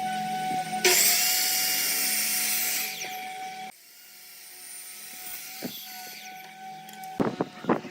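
A high-pitched power tool running steadily, cutting into wood for about three seconds with a loud hissing rasp starting about a second in, then running free again. Several sharp knocks near the end.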